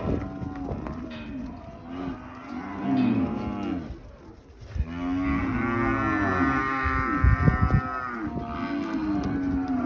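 Cattle bawling, several animals calling over one another, with one long, loud moo from about halfway to near the end.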